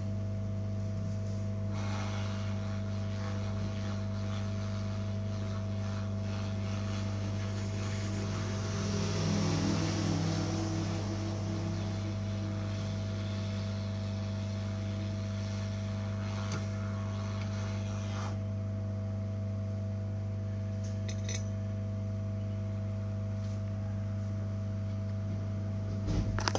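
Hot air rework gun blowing on a satellite receiver's circuit board: a steady hum with a hiss of moving air that swells about ten seconds in and dies away after about eighteen seconds.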